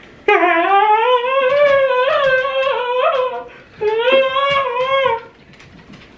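A high-pitched voice holding two long, wavering notes, the first about three seconds and the second about a second and a half.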